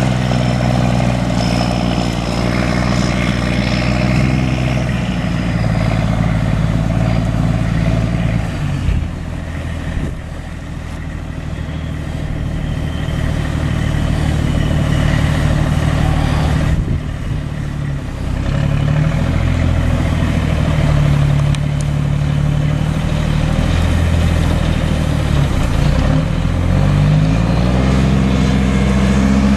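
Cummins M11 inline-six turbo diesel of a 1995 Freightliner FLD112 semi truck running steadily. In the second half its engine speed rises and drops back several times, with two short dips in loudness before that.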